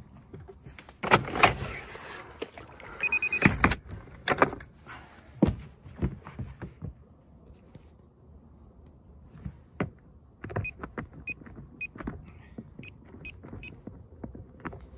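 Haswing bow-mount trolling motor being lowered on its mount: loud clunks and rattles through the first half, with a short beep. Then the foot-pedal controller is pressed, giving clicks and a run of short beeps while the electric motor runs quietly.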